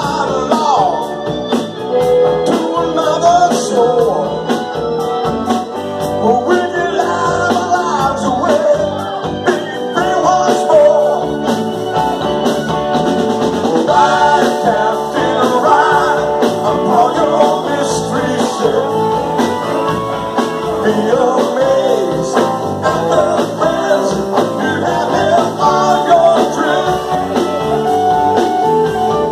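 Live rock band playing: a man singing lead over electric guitars, drums and keyboard, amplified through the PA.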